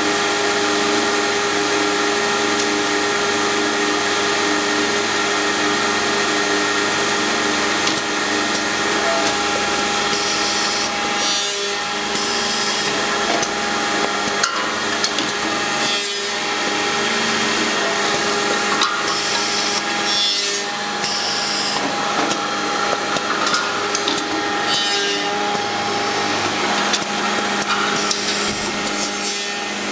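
FK 1ZK cross-milling machine running and cutting wood: a steady motor whine under continuous cutting noise, with a few brief dips in the cutting.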